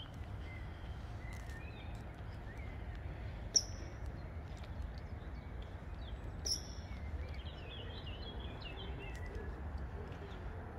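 Small birds chirping and twittering, with two sharp high chirps, the first the loudest, about a third and two thirds of the way in, and a flurry of twittering past the middle, over a steady low rumble.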